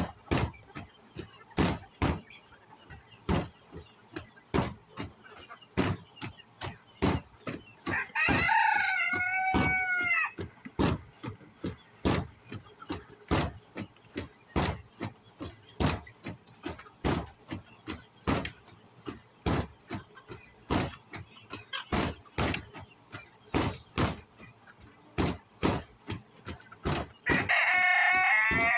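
A rooster crowing twice, each crow a pitched call of about two seconds, the first about eight seconds in and the second near the end, over a continual run of short sharp clicks, two or three a second.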